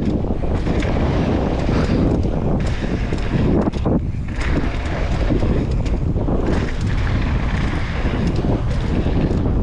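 Strong wind buffeting the camera's microphone: a loud, uneven rumble that rises and falls with the gusts.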